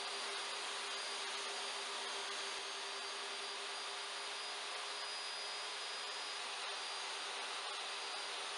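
DeWalt jobsite table saw running freely at full speed, a steady motor hum with the blade spinning and no cut yet under way.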